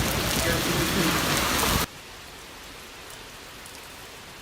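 Heavy rain pounding down, which stops abruptly about two seconds in and gives way to a quieter, steady patter of rain.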